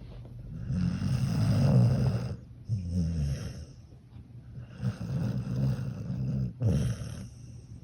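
Cocker spaniel snoring: two long snoring breaths, each followed by a shorter one.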